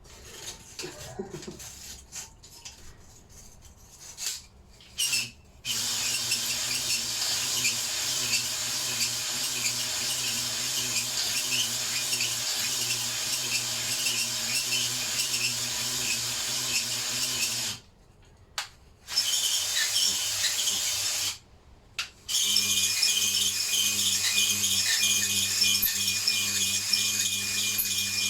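Cordless Ryobi drill spinning a cylinder hone inside a Lister D engine's cast bore, the stones scraping against the cylinder wall. It starts a few seconds in, stops twice briefly, and after the second stop runs at a different pitch.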